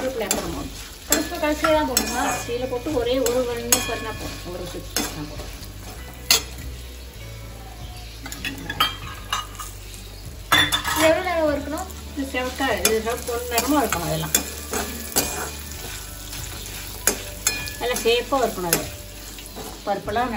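Perforated steel spoon stirring and scraping dal, red chillies and nuts around an aluminium kadai, with repeated clicks and scrapes of metal on the pan over the light sizzle of the ingredients roasting in coconut oil.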